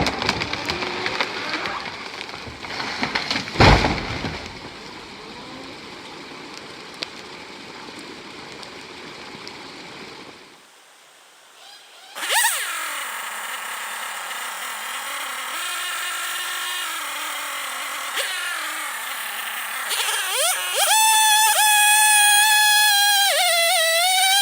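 Chainsaw and tree-felling noise with a single loud thud about four seconds in, then steadier lower noise. After a short lull, music with a melodic line starts about twelve seconds in and grows stronger near the end.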